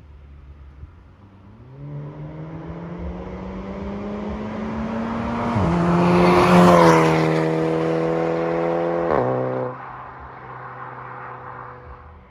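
Custom exhaust of a VW Polo GTI (6C), a turbocharged four-cylinder, accelerating hard past: the engine note climbs steadily, drops at a gear change about five and a half seconds in, and is loudest as the car goes by. It falls away sharply as the throttle is lifted, leaving a fainter drone as the car moves off.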